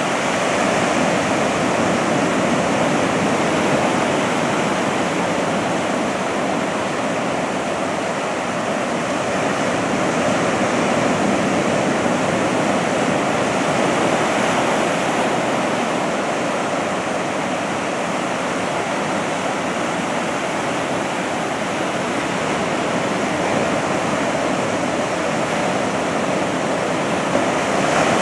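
Ocean surf breaking and washing up the beach: a continuous rushing noise that swells and eases slightly as the waves come in.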